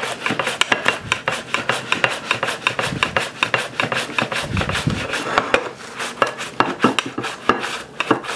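Half an onion slid rapidly back and forth over a handheld mandoline slicer, each stroke a short scrape as the blade shaves off a paper-thin slice, in a quick, even rhythm of several strokes a second.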